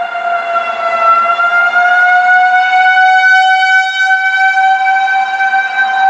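Outdoor tornado warning siren sounding one long held tone, sagging slightly in pitch about a second in and then rising back to a steady pitch.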